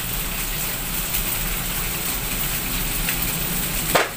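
Anchovies, tofu and chilies sizzling steadily in a frying pan, with a single sharp knock near the end.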